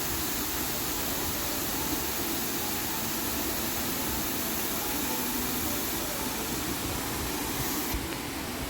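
Steady rushing noise with no distinct events; the hiss in the highest range drops away about eight seconds in.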